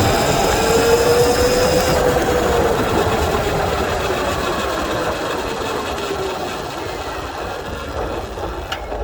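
Sur-Ron electric dirt bike's mid-drive motor and drivetrain whining while riding. The whine rises a little, then falls away as the bike slows, over a rush of wind noise. The whine is the mid-drive noise that the rider complains of.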